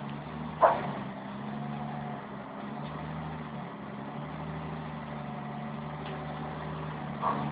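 Concrete mixer truck's engine running steadily, with one short sharp noise under a second in.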